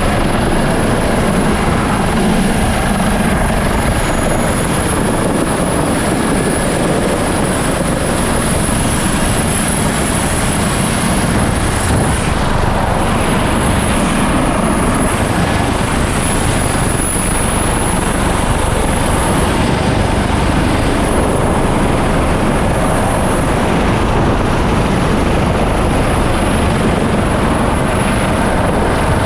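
Loud, steady rotor and twin-turbine noise of an MH-65 Dolphin helicopter, heard from inside the cabin with the side door open, with a thin steady high whine above it.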